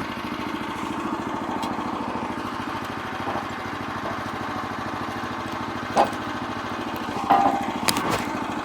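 Portable band sawmill's gas engine running steadily, with a sharp knock about six seconds in and a few metal clanks near the end.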